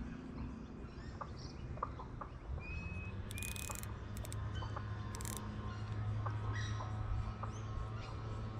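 Wild birds calling: scattered short chirps and two clear whistled notes a little after two seconds in, over a steady low hum.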